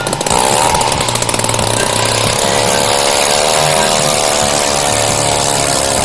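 Gas-powered ice auger running, its spiral bit drilling a hole through lake ice. The engine revs up about a third of a second in, then runs steadily under load.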